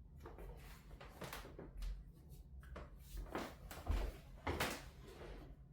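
Rustling and soft knocks of hands and clothing as a patient's arm is moved and handled, with a dull thump about four seconds in.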